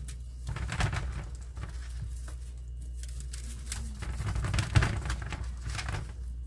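Gloved hands rubbing seasoning into raw ribeye steaks and shifting them in an aluminum sheet pan: irregular soft rustling and small clicks, with one sharper click a little before the end, over a steady low hum.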